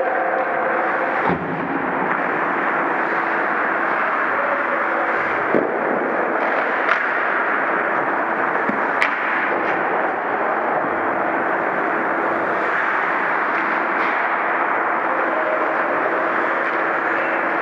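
Steady ice rink noise during hockey play, with a few sharp knocks of sticks and puck against the ice and net.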